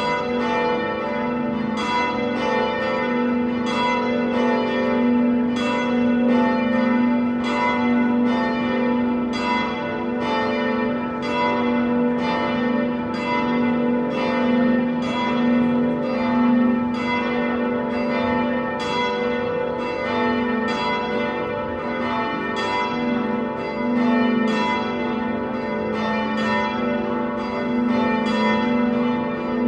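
Church bells ringing a continuous peal, strikes following evenly at about three every two seconds, each new stroke over the long ringing of the ones before.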